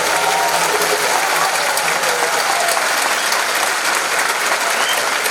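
Audience applauding steadily at the end of a live folk song performance.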